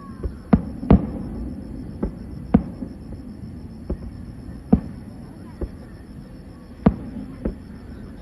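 Fireworks going off: about nine sharp bangs at irregular intervals, the loudest about a second in and near seven seconds, over a steady low background hum.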